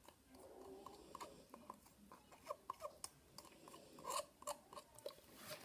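Faint, scattered light clicks and scrapes of a folding knife's blade working gritty match-head powder out of a plastic lid onto duct tape.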